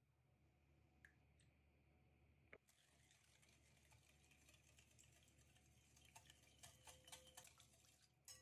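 Faint wire whisk stirring a thin liquid mixture in a glass bowl, starting about three seconds in: a soft swishing with quick, irregular ticks of the metal wires against the glass. A few single small clicks come before it.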